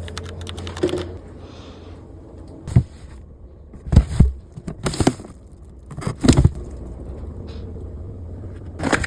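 Food containers and shelf items being handled while a refrigerator is cleaned out, giving a few sharp knocks and clatters at irregular intervals.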